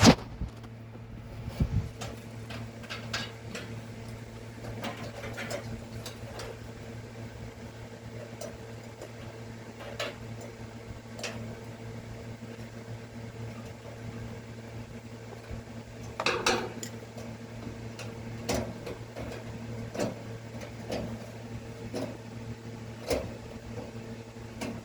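Scattered small clicks and metallic taps of a replacement thermostat being fitted by hand into a Kenmore dryer, with a louder cluster of handling knocks about two-thirds of the way through, over a steady low hum.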